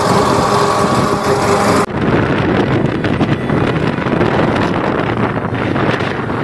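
Royal Enfield Hunter 350's single-cylinder engine running at highway speed, with road noise and wind rushing over the microphone. About two seconds in the sound changes abruptly, and gusty wind buffeting on the microphone takes over.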